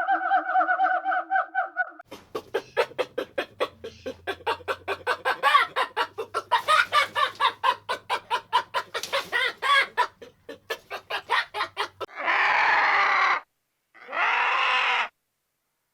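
Chickens clucking: a busy, rapid run of short calls. About 12 s in it cuts to a different sound, two separate noisy calls about a second long each.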